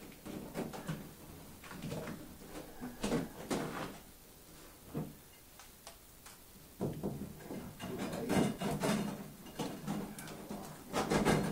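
A sheet of crystal rhinestone mesh being handled on a work surface: irregular rustling and light clattering. It goes quieter for a few seconds midway, then gets busier, loudest near the end.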